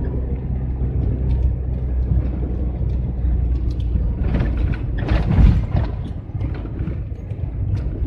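GAZelle van engine heard from inside the cab, pulling steadily up a long climb. About halfway through, a louder rushing rumble swells and fades over it, and the engine note then drops for a while before picking up again near the end.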